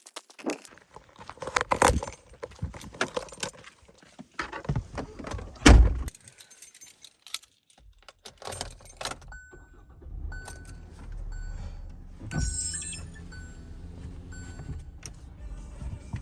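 Car keys jangling and things being handled, with a loud thud about six seconds in like a car door shutting. From about ten seconds in, a car engine runs steadily while a warning chime beeps about once a second.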